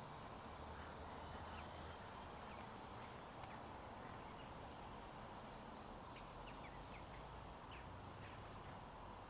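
Faint outdoor street ambience: a steady low background hum with scattered faint bird calls.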